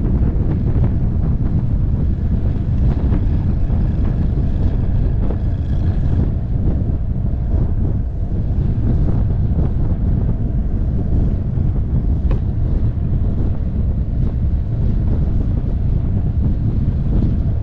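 Wind buffeting the microphone of a camera mounted on a moving motorcycle, a steady low rumble, with the motorcycle's running and scattered knocks from the road surface underneath.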